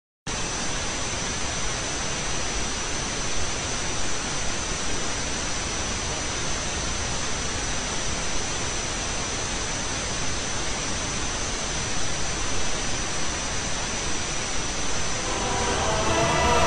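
Steady static hiss with a thin, high, steady whine running through it. Music fades in about a second before the end.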